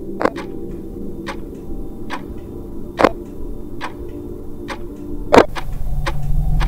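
Clock-like ticking, about one tick a second, with three heavier knocks about two and a half seconds apart, the last the loudest, over a low steady drone. Near the end the ticks speed up and a low rumble swells, building tension.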